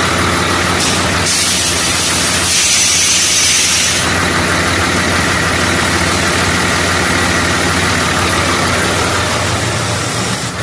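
Truck engine idling steadily, with a loud burst of air hissing from about a second in until about four seconds in, from the air suspension as its newly repaired level control valve moves air through the suspension bags.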